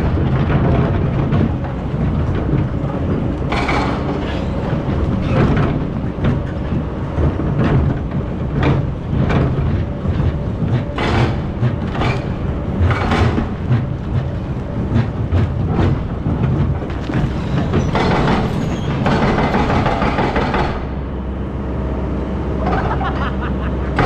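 Excavator's diesel engine running under load, with repeated clanks and knocks from the working bucket and machinery; the knocks thin out near the end, leaving a steadier engine hum.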